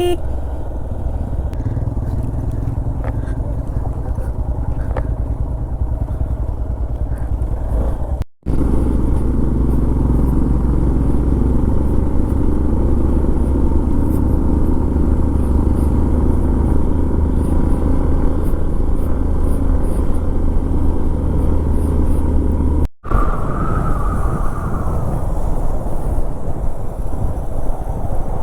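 Motorcycle engine and road noise while riding, a steady low rumble, broken twice by abrupt cuts.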